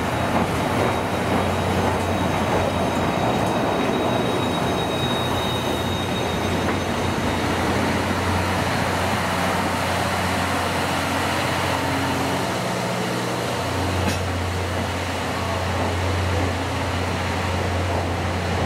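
Steam-hauled passenger train rolling slowly into the platform, a steady rumble of coach wheels on the rails with a low hum beneath. A thin high squeal comes about four to six seconds in, and a single sharp click near fourteen seconds.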